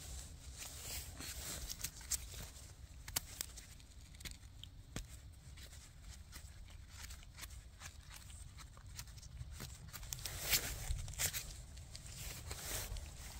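Knife scraping and trimming soil off the stems of freshly picked porcini, with small clicks and rustling as the mushrooms are handled. The scrapes come louder and longer near the end.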